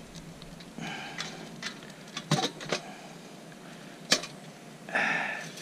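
Mug and spoon clinking while coffee is made: a few light clicks early on, two sharp clinks about two seconds in, another about four seconds in, then a short rushing noise near the end.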